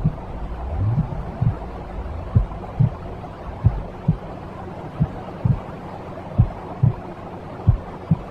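Heartbeat sound of the kind used to soothe babies: paired low thumps, about one beat every 1.3 seconds, over a steady low rushing noise.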